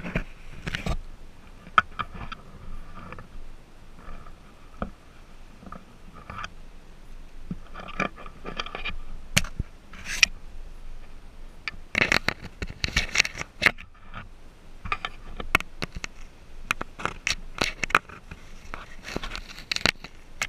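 A white-faced capuchin monkey handling and biting at a GoPro camera right against its microphone: irregular scraping and sharp clicking of hands and teeth on the plastic housing, coming in clusters.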